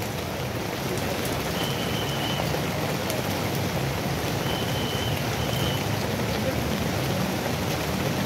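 Steady hissing outdoor background noise, with a faint high steady tone heard briefly twice.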